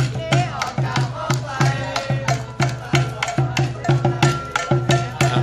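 A pair of conga drums beaten with sticks in a fast, steady cheer rhythm, with voices shouting along.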